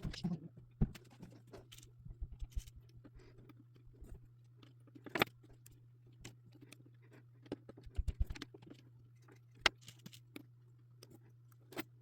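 Faint, irregular clicks and rustles of jumper wires being handled and pushed into a solderless breadboard, over a steady low hum.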